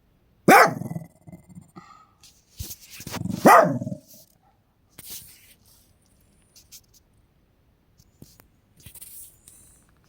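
An elderly dog barking twice, about three seconds apart, the second bark coming out of a short rising build-up.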